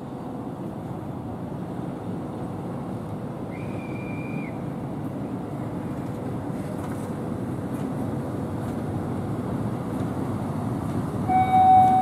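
Class 181 electric locomotive running light on its own, approaching with a steady rumble that grows louder. About a second before the end it sounds a loud, held horn note.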